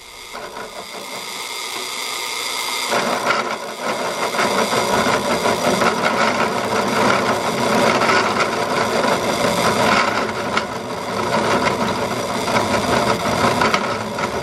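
Drill press running with a hole saw. About three seconds in, the saw bites into a steel pipe held at a steep angle, giving a harsh, uneven cutting noise. This is a tight-angle cut that the hole saw does not manage well.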